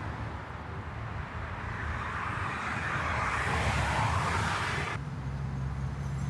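Road traffic: a steady low engine hum with tyre and road noise that swells as a vehicle passes, loudest about three to four seconds in, then eases.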